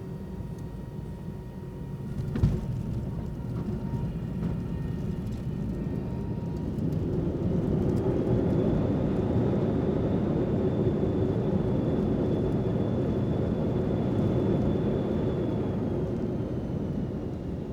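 Airliner engine noise: a steady low rumble with a sharp thump about two and a half seconds in, then the noise swells louder with a high steady whine, which fades out near the end as the rumble eases off.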